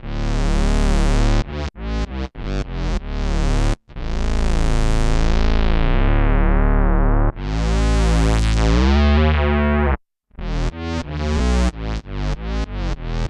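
Electric bass played through an MXR Bass Synth pedal, giving synth bass notes whose filter opens bright on each attack and then closes. A few short notes lead into two long held notes that slowly darken. After a brief stop near the end comes a fast run of short repeated notes, about four a second.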